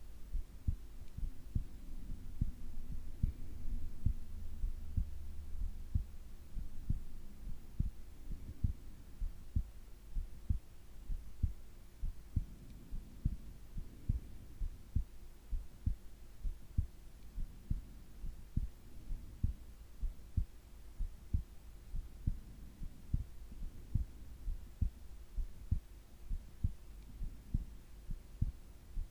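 Human heartbeat during sleep: steady, regular low thumps, a little over one a second, over a faint steady hum.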